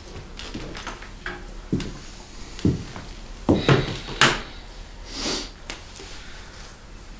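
Irregular knocks and thumps of someone handling things and moving about in a small room, the sharpest ones in the middle, followed by a short rustle.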